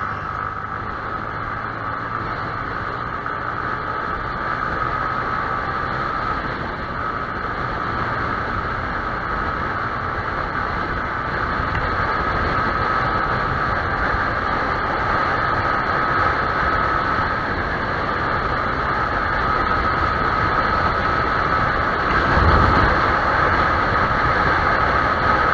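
Yamaha YZF-R15 motorcycle on the move, heard from on board: a steady rush of wind and road noise with the engine's whine running through it, gradually getting louder.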